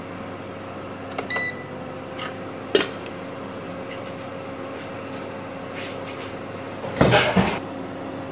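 A steady background hum with a few light clicks, then a brief clatter about seven seconds in: a metal spatula scraping and knocking on the iron tawa as whole dry spices are pushed around to roast.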